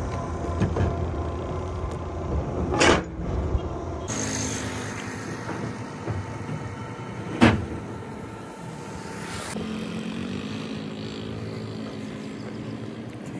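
Steel side stakes of a flatbed truck trailer being swung up and set into their sockets, with two loud metal clanks, about three seconds in and again about seven and a half seconds in, the second the loudest. A steady engine hum runs underneath.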